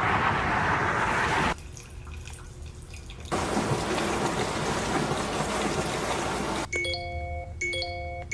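Sound track of a short video: a steady rushing noise, like running water, that cuts off abruptly, returns, then gives way near the end to a short electronic chime of several notes, repeating about once a second.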